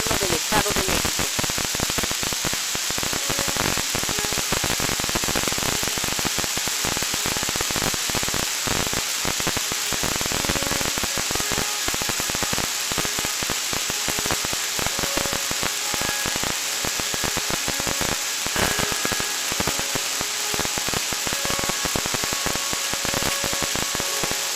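Radio static from a receiver tuned to the SASMEX seismic-alert broadcast: a steady crackling hiss with no voice. About ten seconds in, faint steady tones begin to show through the noise.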